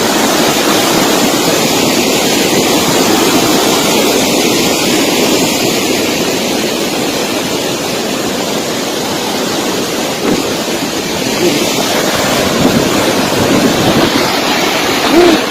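Flash-flood stream rushing with a fast, strong current: a loud, steady wash of churning floodwater.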